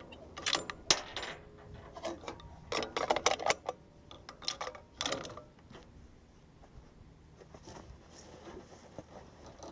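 Sharp metallic clicks and clacks from a .300 Winchester Magnum rifle being handled between shots, in irregular groups with a tight cluster about three seconds in, fading to faint ticks after about five seconds.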